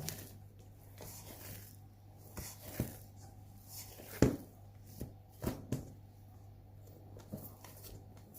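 Hands working bread dough in a mixing bowl: soft rustling with scattered knocks against the bowl, the loudest about four seconds in, over a steady low hum.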